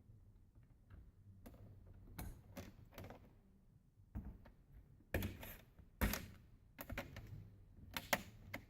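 Plastic screen bezel of a Chromebook being pressed and snapped back into place by hand: a series of irregular plastic clicks and taps, loudest about five and six seconds in.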